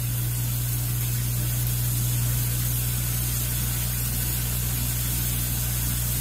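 Shower running: a steady hiss of water spray with a low, even hum underneath. It stays unchanged throughout.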